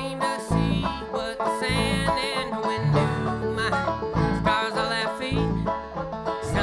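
Live folk band playing an instrumental passage led by rapidly picked banjo, with a bass line pulsing underneath.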